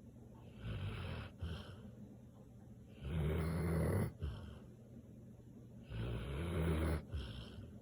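Samoyed dog snoring in its sleep: a soft snore near the start, then two louder snores about three and six seconds in, each lasting about a second.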